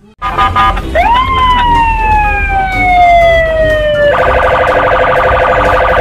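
Police siren: a wail that rises sharply and then slowly falls over about three seconds, switching about four seconds in to a fast warble, over a low rumble.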